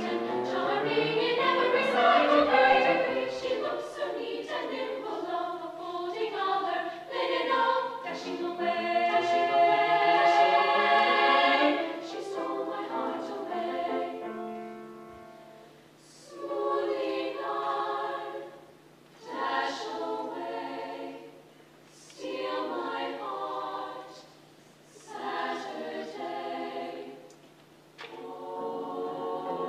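Women's choir singing a British folk song arrangement with piano accompaniment. The first half is one continuous passage; from about halfway the singing comes in short phrases with brief pauses between them.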